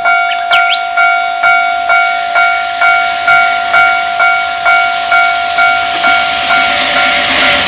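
Japanese level-crossing warning alarm ringing, a repeated electronic clang about twice a second. Over the last couple of seconds the rushing run of an approaching EF200 electric locomotive and its freight train swells beneath it.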